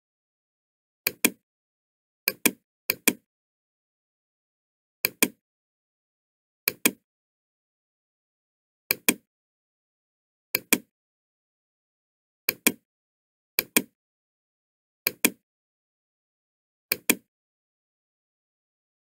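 Computer mouse button clicking, about eleven times at irregular intervals of a second or two. Each click is a quick double tick of press and release, with dead silence between.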